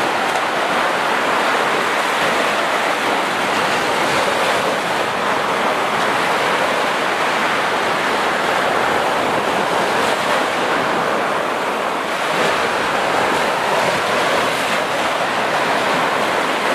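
Small waves breaking and washing up onto a sandy beach: a steady rush of surf.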